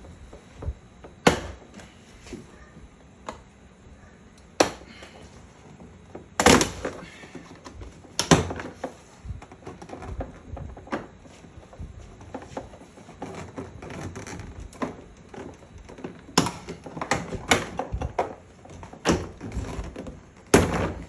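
Sharp plastic cracks, snaps and thunks as parts are pried and forced out of a Toyota Tacoma's door by hand, about ten loud hits at irregular intervals with scraping and handling noise between them.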